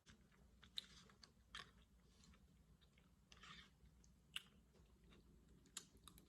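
Faint chewing of soft fettuccine alfredo pasta, with a few short clicks spread through.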